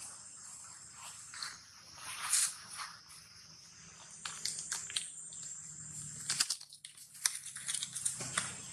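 Insects trilling steadily in the background, with scattered short crackles and rustles of dry leaf litter as the animals move about and forage on the ground.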